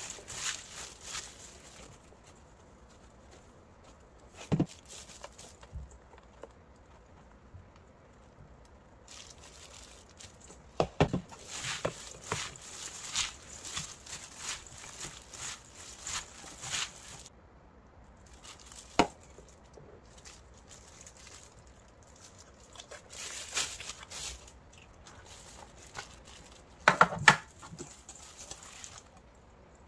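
Kitchen handling sounds: stretches of rustling and scraping with a few sharp knocks, the loudest a quick cluster of knocks near the end.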